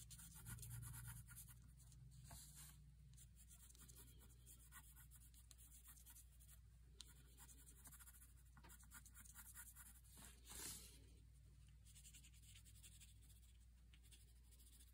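Faint scratching of a watercolor pencil stroked back and forth on paper as an area is colored in, over a steady low hum.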